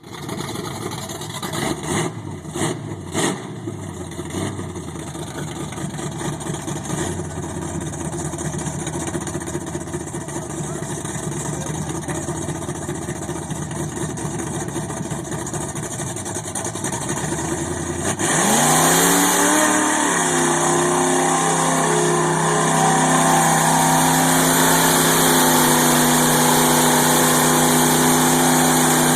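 Newly fitted 350 Chevy small-block V8 in a 1979 Toyota mud truck running, with a few quick throttle blips about two to three seconds in. About two-thirds of the way through the sound changes abruptly to a steady, clearly pitched engine drone that rises and then holds at a raised speed, as the new engine is broken in.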